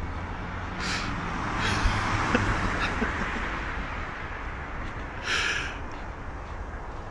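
A leafy tree branch shaking and its leaves rustling in bursts as a dog leaps up and tugs at it with its mouth, with one short thump about two seconds in, over a steady low rumble.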